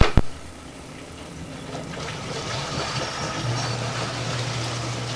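Two sharp clicks, then running water that swells from about a second in and keeps flowing, with a steady low hum joining about three and a half seconds in.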